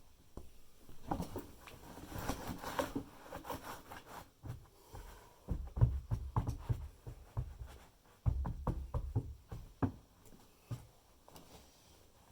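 Irregular wooden knocks and dull thumps from hands-on work on a timber floor, coming in clusters about halfway through and again later on.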